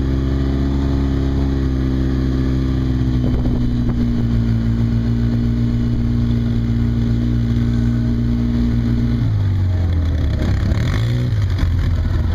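Off-road vehicle engine running at a steady pitch while driving along. About nine seconds in, the pitch drops and then wavers up and down.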